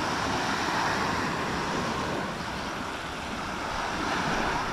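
Ocean surf washing up on a sandy beach, a steady rush, with some wind on the microphone.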